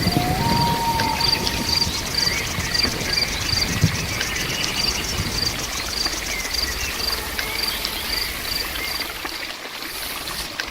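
Insects chirping in a steady, regular rhythm, about two or three chirps a second, over a constant hiss; the chirping stops near the end.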